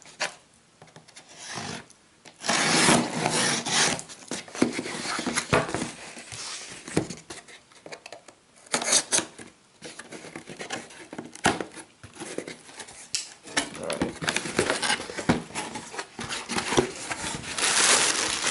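A small blade slicing and scraping along the packing tape of a cardboard shipping box, with cardboard rubbing and knocking as the box is turned and its flaps opened. Near the end, plastic packaging inside the box rustles as it is handled.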